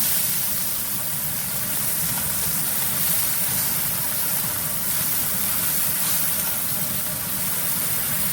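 Kitchen exhaust fan running with a steady whir and hiss.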